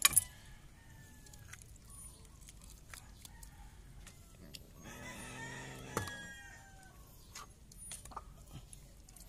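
A rooster crowing once, about five seconds in. Around it come scattered short ticks and scrapes of a knife scaling and cutting small fish on a wooden board, with a sharp click at the very start.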